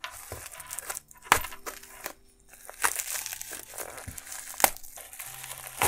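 Scissors cutting open a plastic-wrapped parcel: the plastic crinkles and rustles throughout, with a few sharp, loud snips.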